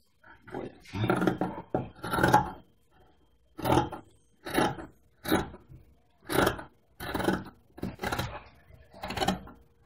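Large tailor's shears cutting through trouser cloth along a chalk line: about ten snips at a steady pace of roughly one a second, each a short crisp cut as the blades close through the fabric.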